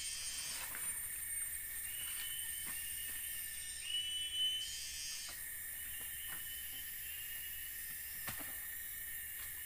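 Steady high-pitched chorus of tropical forest insects, with a rising whine about four seconds in. A few scattered sharp snaps come from the small campfire being tended.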